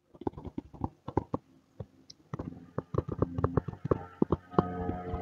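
Stylus tapping and scratching on a tablet screen during handwriting: an irregular run of short, sharp clicks. From about two seconds in, a steady hum of several held tones sits under the clicks.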